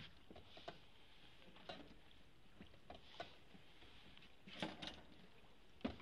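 Quiet strokes of a wooden rowing oar in canal water: soft splashes, drips and light knocks at irregular intervals, the loudest just before the end, over a faint steady hiss.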